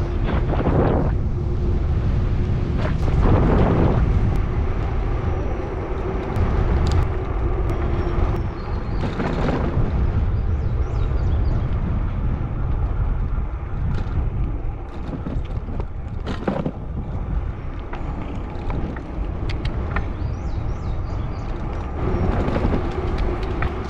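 Wind rushing over the camera microphone on a moving e-bike, with the low rumble of its tires on the paved trail.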